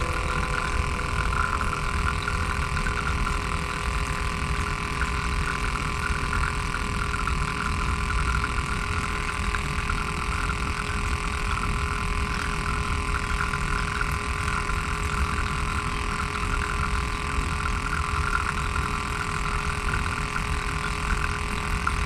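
A small 3D-printed water pump's DC motor humming steadily with a few fixed tones, while its water pours and splashes into the fountain bowl.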